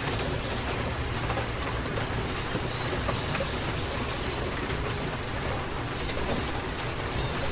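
Steady rain falling in a rainstorm, an even hiss of rain with a few sharper drop ticks standing out, one about a second and a half in and one near the end.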